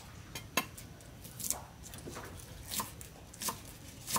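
Cleaver chopping green onions on a round wooden chopping block: about six sharp knocks of the blade on the wood, at a slow, even pace of roughly one every half to three-quarters of a second.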